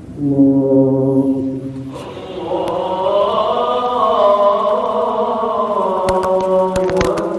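A man's voice over the mosque loudspeaker chanting the takbir, "Allahu akbar", in long drawn-out sung notes: a short held note, then a longer phrase that rises and falls. It is the call for the congregation to rise from prostration into the sitting of the prayer. A few sharp clicks come near the end.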